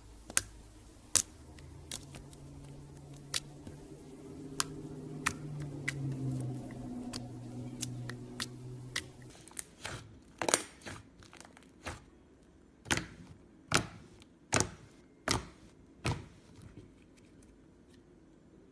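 Slime being squished and poked by hand, giving a string of sharp popping clicks as air pockets burst, coming closer together in the second half. A faint low hum sits under the first half.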